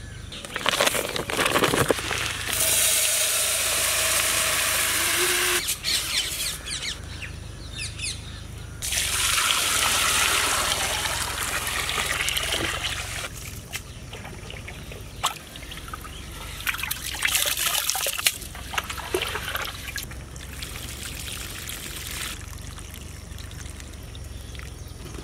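Dry rice pouring from a sack into a metal pot, then water poured onto it from a bucket, each a steady rushing pour of a few seconds. After that, hands swish and rub the rice in the water, washing it.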